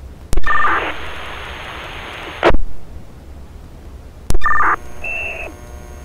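Fire department two-way radio channel with no one talking: a click and a short two-tone data beep as a radio keys up, then about two seconds of open-channel hiss that ends in a loud burst of static. About four seconds in comes a second key-up click and two-tone beep, followed by a brief higher beep.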